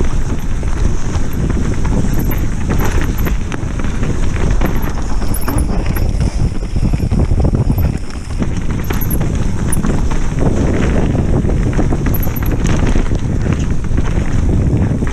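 Mountain bike rolling fast down a frozen, rutted dirt trail: a steady rumble of tyres and wind on the microphone, with constant small clacks and knocks from the bike and a rattling action camera over the rough ground.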